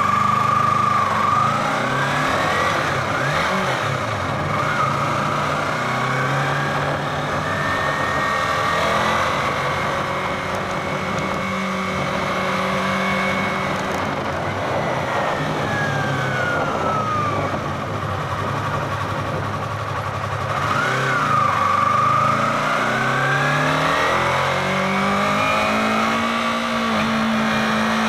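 2016 Yamaha R3's parallel-twin engine running under light throttle, its pitch rising and falling several times as the bike is flicked from side to side.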